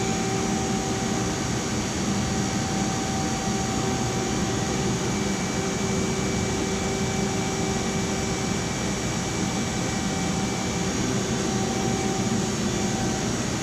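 Steady hum of a FEMCO HL25N CNC lathe running under power as its X axis steps through a laser positioning-accuracy check, with faint steady tones that come and go.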